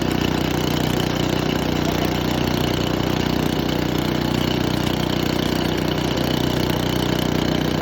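Echo Bearcat wood chipper's 9-horsepower engine running steadily.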